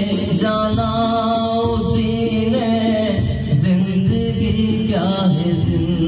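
A man singing an old Hindi film song into a handheld microphone over a musical backing, holding long wavering notes.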